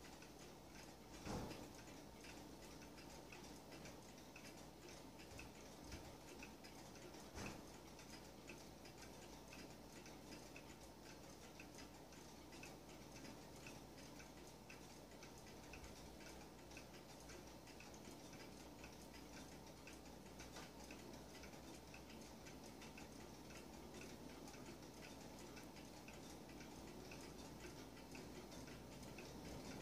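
Weight-driven cuckoo clock ticking steadily and faintly. Two soft thumps stand out, one about a second in and another about seven seconds in.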